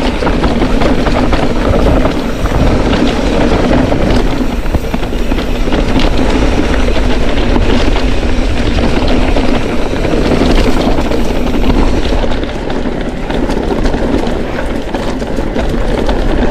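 Mountain bike riding a rough dirt trail: steady wind rush on the microphone and tyre noise on the ground, with frequent short rattles and clicks from the bike over rocks.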